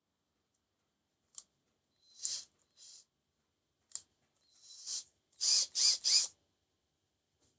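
Hand work on a plastic power-tool housing: a few sharp clicks and short scraping rasps, ending with three quick rasps in a row about two-thirds of the way through.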